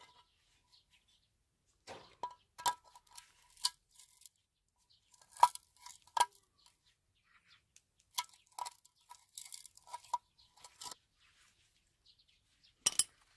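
Steel pliers being handled: a scattered series of sharp metallic clicks and clinks, each with a brief ring, with quiet gaps between them.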